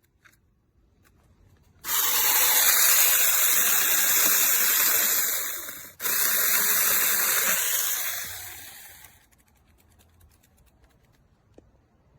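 Loud, steady hiss that starts abruptly about two seconds in, breaks off for an instant midway, then resumes and fades out.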